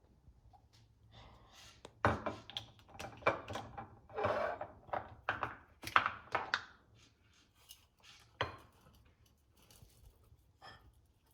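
Kitchen clatter of dishes and utensils being handled: a quick run of knocks and scrapes, busiest in the middle, then a last knock and a few light clicks.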